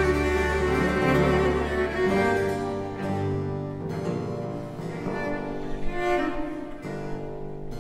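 Two solo baroque cellos playing a slow Largo in sustained, bowed phrases over a continuo accompaniment from a baroque orchestra. A deep bass line drops out about two seconds in, and the playing then grows softer.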